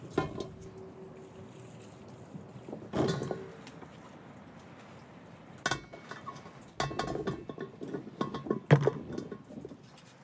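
Peeled potatoes being tipped off a tray into a metal enamel bowl: a knock with a brief ring in the first second and another about three seconds in, then from about six seconds in a quick irregular run of wet thuds and clinks as the potatoes tumble into the bowl.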